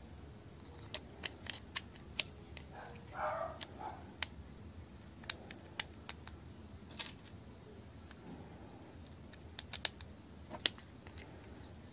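Scattered small clicks and taps of hard plastic and metal parts as a Bosch GSR 12-2 cordless drill's two-speed gearbox is handled and fitted together, with a short scrape about three seconds in and the sharpest clicks near the end.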